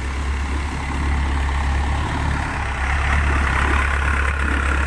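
A boat's engine running steadily with a deep drone, getting somewhat louder about a second in and again near three seconds.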